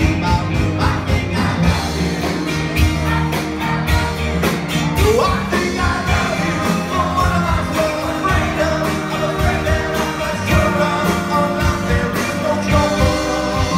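Live rock band playing, with a lead singer over electric guitars, bass and a steady drumbeat.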